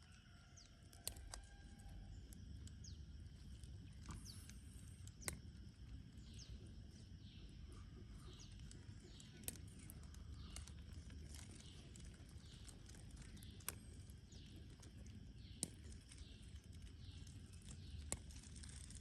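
Faint outdoor ambience: a low steady rumble with many short, high, falling chirps of distant birds, and a few sharp clicks spaced a few seconds apart.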